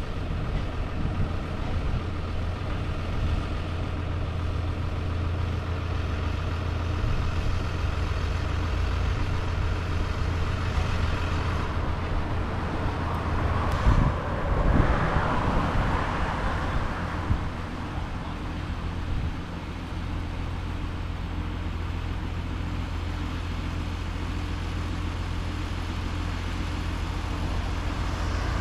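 An engine running steadily at a low pitch, with a louder, rougher swell about halfway through.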